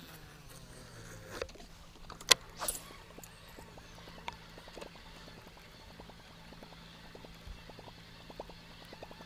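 Casting and retrieving with a baitcasting rod and reel: a sharp click about two seconds in, then a fast run of soft, even ticks as the lure is reeled back, growing denser toward the end, over a steady low hum.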